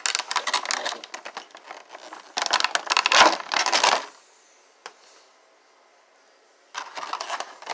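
Clear plastic packaging insert of a vinyl figure box crinkling and clicking as it is handled. The sound is busiest for the first four seconds, falls to a lull of about two and a half seconds with a single click, then the rustling starts again near the end.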